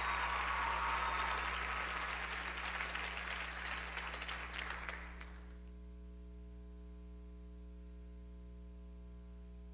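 Audience applauding after an acceptance speech, the clapping fading and then cutting off about five seconds in. A steady hum is left behind.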